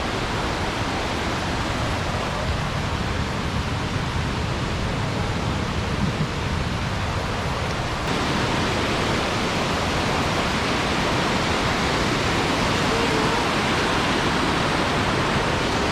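Waterfall cascading: a steady rush of falling water. About halfway through it becomes slightly louder and brighter.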